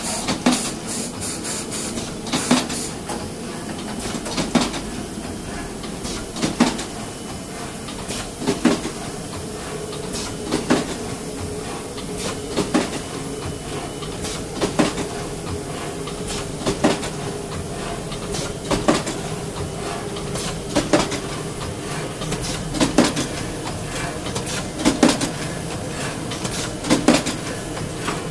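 Automatic polypropylene-film packaging machine running: a steady mechanical hum, with a sharp clack about every two seconds and lighter clicks in between.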